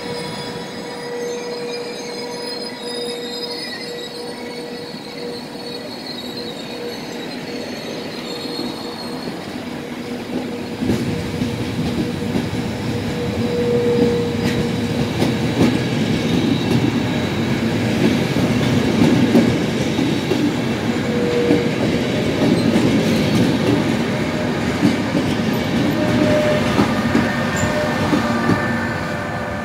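Intercity passenger coaches and their FS E402 electric locomotive rolling slowly past on the rails: continuous wheel-on-rail rumble and clatter with a thin steady squealing tone from the wheels. It grows louder from about ten seconds in as the heavier part of the train nears.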